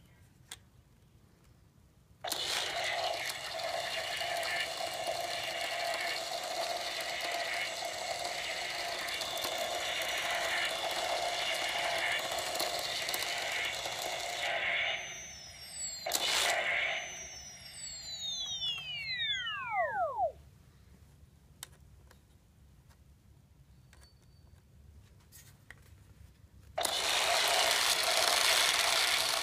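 Electronic sound effects from a Matty Collector proton pack replica's neutrino wand. The steady firing sound starts a couple of seconds in and runs for about twelve seconds, then gives way to falling whines. After a quiet spell it starts again near the end.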